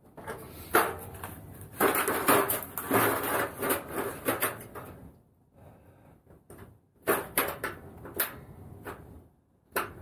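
Handling noise from a portable propane heater being turned over and set down: irregular knocks, clicks and rustling in bursts, with a short quiet gap about halfway and another near the end.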